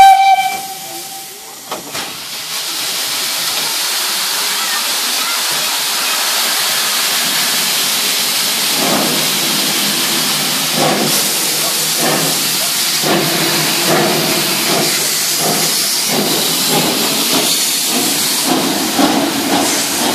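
Ol12-7 steam locomotive giving a short whistle blast, then loud steady hissing of steam from its cylinders as it gets under way. From about nine seconds in, slow exhaust chuffs, roughly one a second, sound through the hiss.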